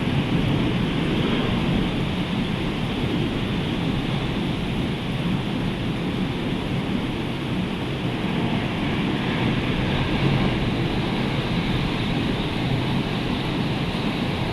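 Rough, hurricane-stirred sea surf breaking and washing in a continuous heavy roar, with wind rumbling on the microphone.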